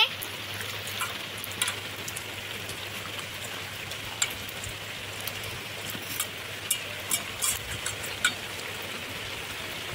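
Hand sloshing and rubbing cut spiny gourd (kakrol) pieces in a steel bowl of water, with scattered small splashes and clinks. Steady rain hisses behind it.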